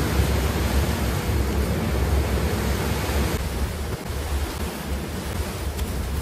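Steady rushing of the flood-swollen Beas river: a dense, even water noise with a deep low rumble beneath it.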